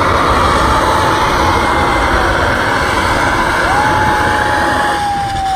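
Narrow-gauge steam locomotive blowing off a loud, steady hiss of steam sideways from low on its side, cutting off near the end. A steady high tone rises over the hiss about three and a half seconds in and slides down in pitch as it ends.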